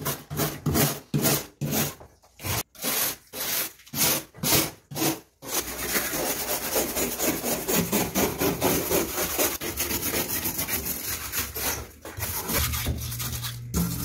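Steel wire brush scrubbing rust off a refrigerator's sheet-metal body. It goes in rough back-and-forth strokes, about two a second, then turns to faster continuous scraping about halfway through. A low steady hum comes in near the end.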